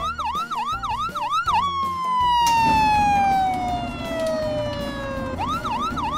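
Toy fire engine's electronic siren: a quick yelping warble of about three rises a second, then a single long tone sliding slowly down in pitch, then the yelping warble again near the end.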